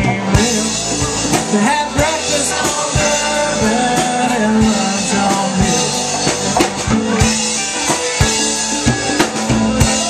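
Live rock band playing: electric guitars, bass guitar and a drum kit with a steady beat.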